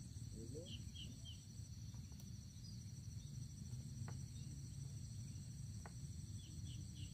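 Faint lakeside ambience: a steady high insect trill, probably crickets, over a low rumble. Short chirps come in quick groups of three or four, about a second in and again near the end.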